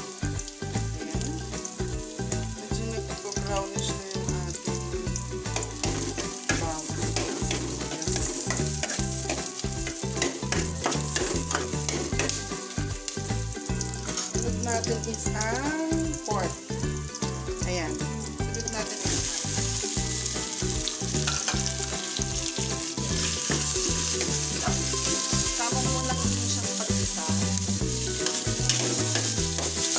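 Meat frying in a pot on a gas stove: a steady sizzle that grows louder and brighter about two-thirds of the way through.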